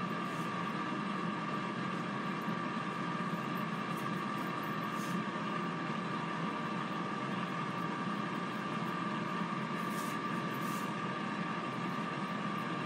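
Power XL air fryer running, its fan giving a steady whirring hum with a constant whine, while it cooks chicken wings.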